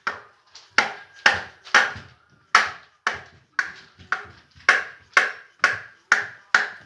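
A rubber mallet striking a Kawasaki KZ750 engine's stator cover over and over, about two blows a second, trying to break loose a cover stuck fast with sealant.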